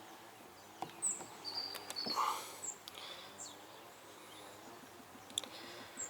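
Quiet background with a few faint knocks and several short, high bird chirps.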